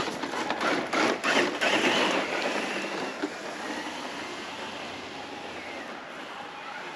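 An electric radio-controlled 6x6 scale crawler truck moving over rough ground. The first two seconds hold a loud clatter of knocks and crunching. After that comes a quieter, steady whir of the motor and drivetrain.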